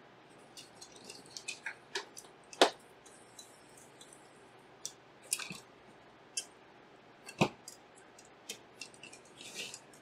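Scattered small clicks and taps of a screwdriver and metal and plastic parts being handled as a graphics card's cooler shroud is screwed back on, with sharper knocks about two and a half and seven and a half seconds in.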